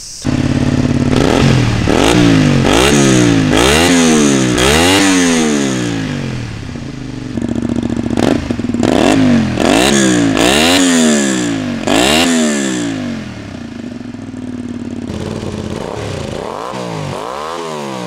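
Honda VTR250 V-twin revved in a series of quick blips through three exhausts in turn. First comes a Moriwaki muffler with an inner silencer, then the same Moriwaki with its packing rewrapped, both loud. From about fifteen seconds in, a generic slip-on silencer fitted with two inner-silencer baffles is noticeably quieter.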